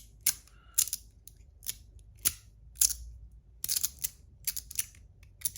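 Magnetic fidget slider being slid back and forth, its metal plates snapping into place with about a dozen sharp clicks at uneven intervals, some coming in quick runs.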